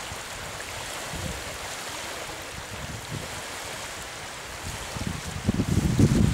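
Shallow lake water lapping and washing in small waves against the shore, a steady wash. About five and a half seconds in, wind starts buffeting the microphone, much louder and low.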